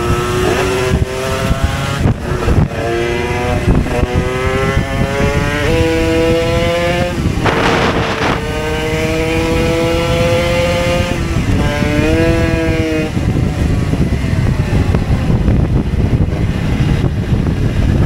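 Moped engines revving hard under way, the pitch climbing and then dropping back several times as the bike goes up through the gears, with wind rumbling on the microphone. A short loud hiss cuts in just under halfway, and in the last few seconds the engine note fades, leaving mostly wind rumble.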